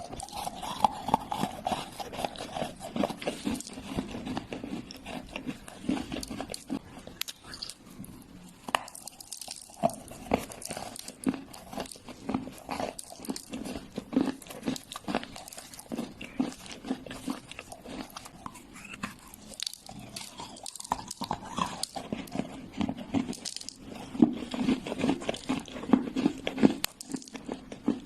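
Wet earthy clay crunching as it is bitten and chewed: a continuous run of irregular sharp crunches and crackles.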